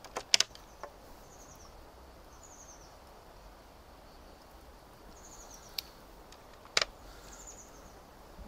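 A few sharp clicks of hard ebonite beads knocking together as a string of flip prayer beads is handled: three in the first second, then two more near the end. Faint, short, high chirping trills recur in the background.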